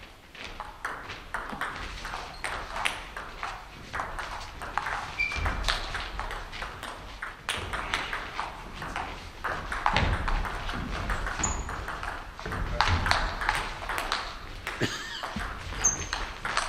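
Table tennis balls being struck by bats and bouncing on the table: a run of sharp, irregular clicks during rallies.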